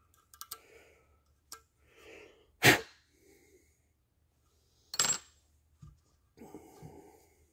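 Compressed-air blow gun blowing out a small-block Chevy oil pump and its pickup: two short, loud blasts of air about two seconds apart, with light metal clicks and handling noise around them.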